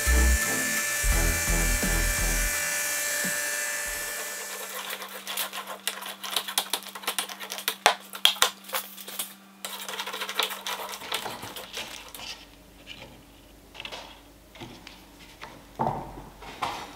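Music with a heavy beat over a high hiss from the drum sander, both dying away within the first few seconds. After that, a faint steady hum and a string of light clicks and knocks as oak lamellas are handled and laid up for gluing, with a couple of louder knocks near the end.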